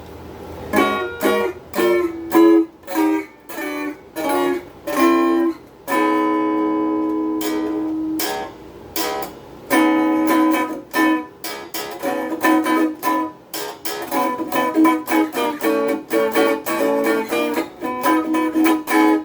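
Donner DST-80 Strat-style electric guitar on its neck pickup, played quietly through its small included amp on the overdrive channel: a picked melodic run of single notes and chords, with one chord left ringing for a couple of seconds about six seconds in.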